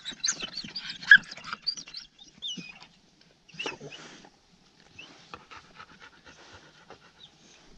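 Hunting dog panting, with a run of short high squeaks and whines in the first couple of seconds, then quieter, with faint rustling and ticks.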